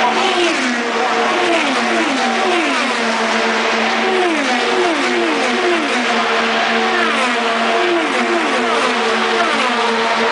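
IndyCar race cars passing close by at speed on an oval, one after another, each engine note dropping sharply in pitch as it goes past. Under the passes runs a steady engine drone.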